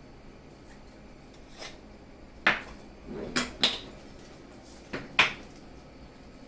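Hard kitchen items knocking and clattering against a counter as they are handled: one sharp knock, then a pair of knocks about a second later, and two more about two seconds after that.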